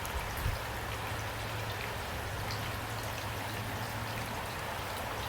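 Steady rain falling, an even patter of raindrops, with a low hum underneath.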